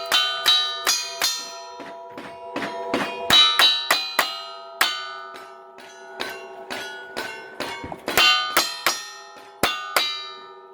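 Rapid string of gunshots from a cowboy action shooting stage, about two to three a second with short pauses between strings, each hit setting steel plate targets ringing so the clangs overlap into a lingering metallic ring.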